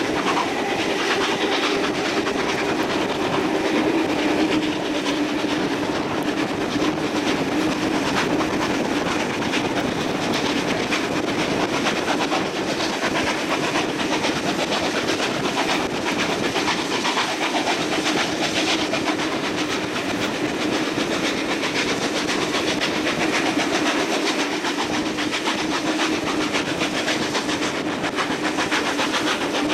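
Steam-hauled passenger train running, heard from an open carriage window: a steady clatter of carriage wheels over the rails with the steam locomotive working at the head of the train.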